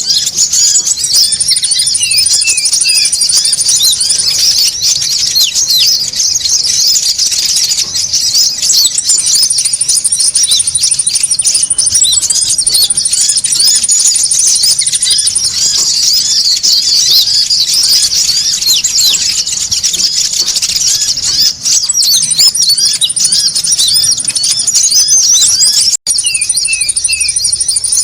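Konin birds chattering noisily: a dense, continuous mass of high, thin, overlapping chirps, with long, even, very high trills coming in at times. This is a bird-lure (pikat) recording made to draw konin in.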